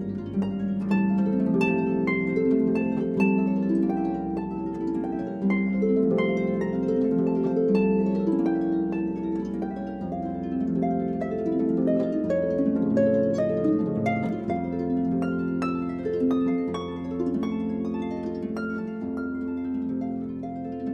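Background music of gently plucked harp-like notes over held lower tones.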